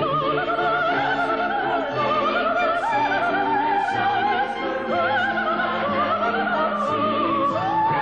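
Operatic soprano singing a Christmas song with wide vibrato over orchestral accompaniment, in long held notes.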